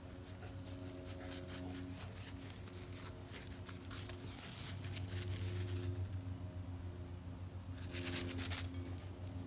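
Pea gravel crunching and crackling underfoot as a dog scampers around on a gravel path, in irregular bursts, heaviest from about four to six seconds in and again near the end.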